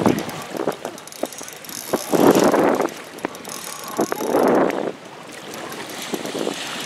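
Spinning reel drag buzzing as a hooked smallmouth bass pulls line, in two short runs about two and four seconds in, with scattered reel clicks between.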